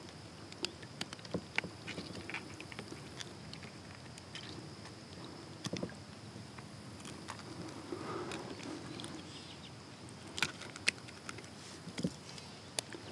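Quiet handling noise: scattered small clicks and taps as metal pliers work a topwater lure's hooks free from a smallmouth bass held in a mesh landing net, with a few sharper clicks about ten seconds in.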